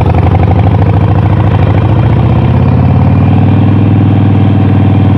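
Harley-Davidson Sportster 48's air-cooled V-twin engine running loudly near idle, its revs rising a little about two and a half seconds in and holding there as the bike moves off.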